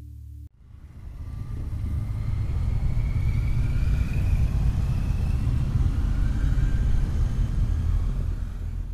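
A group of motorcycles riding past one after another, their engines a steady rumble that builds over the first second or so and stays loud, with a rising engine note partway through.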